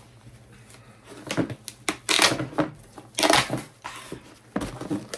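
A parcel being opened by hand: a run of rough tearing and crinkling bursts from the packaging, starting about a second in.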